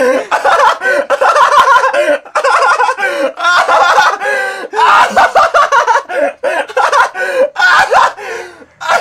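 A man laughing hard in loud bursts with short catches of breath between them, trailing off near the end.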